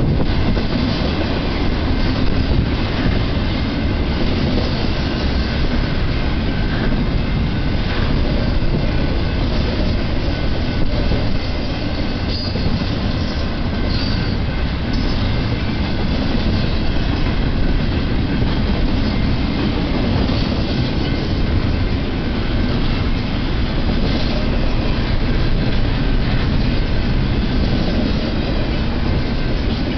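Double-stack intermodal freight train's loaded well cars rolling past, a steady rumble of steel wheels on rail. Faint, brief wheel squeal comes through now and then.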